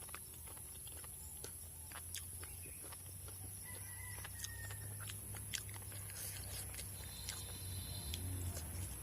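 Close-miked eating: scattered sharp clicks and smacks of mouth and fingers working rice and curry, over a steady low hum. A faint short whistle-like call comes about four seconds in.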